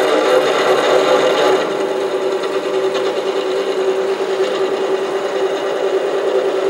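SC2 mini lathe running with its spindle turning, a steady whine from its motor and drive.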